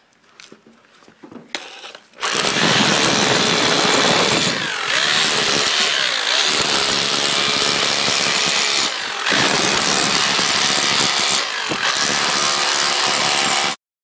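Bosch hammer drill with a wide spade (chisel) bit hammering, chipping old tiles off a concrete floor, with the tiles cracking and scraping loose. It starts about two seconds in, runs with a few short pauses and stops abruptly near the end.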